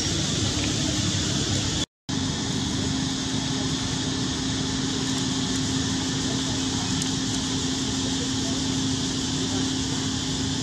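Steady outdoor background noise: an even hiss with a steady low hum under it, cut off briefly by a short gap of silence about two seconds in.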